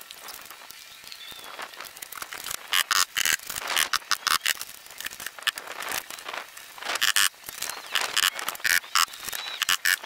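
Irregular clusters of sharp clicks and knocks from carpentry work, several in quick succession about three seconds in and again around seven and nine seconds.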